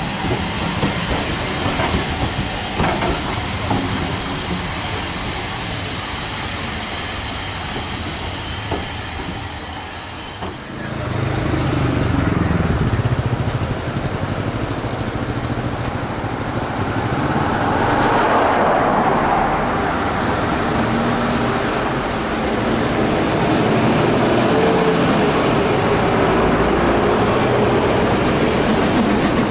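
Passenger coaches rolling away over the rails with a clickety-clack. About ten seconds in, the sound switches to a Stanier 8F 2-8-0 steam locomotive approaching with a goods train, working steam and growing louder.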